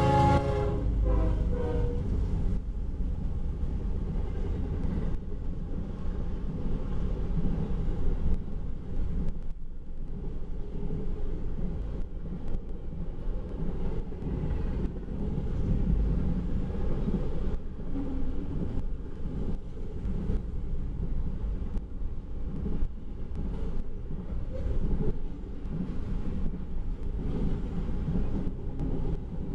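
Diesel locomotive horn ending its blast in the first couple of seconds as the lead GE ES44DC and two GE Dash 9-44CW locomotives pass. Then a long double-stack intermodal freight train rolls by with a steady low rumble and irregular wheel clicks and clunks.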